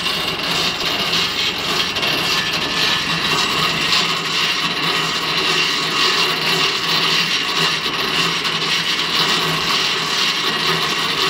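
Air-cooled petrol engine running steadily at high speed, driving a homemade band sawmill through V-belts and pulleys.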